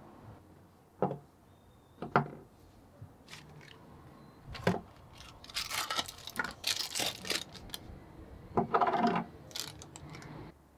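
Hands handling new parts on a wooden workbench: a few sharp knocks as items are set down, then rustling and crinkling of packaging as a new ball bearing is handled in its wrapping and cardboard box, with more knocks and rustling as the bearing and boxes are put down.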